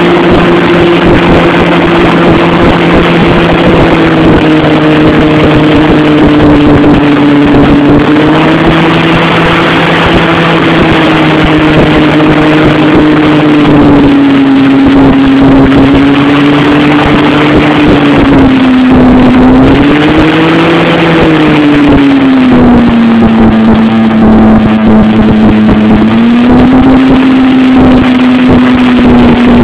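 Hovercraft engine and fans running loud and steady, heard from on board. The engine pitch eases down a few times, with brief rises around the middle and near the end, as the throttle changes.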